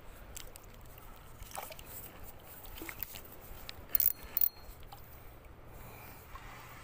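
Handling noise from fabric brushing close to the microphone, with scattered soft clicks and two sharp clicks about four seconds in.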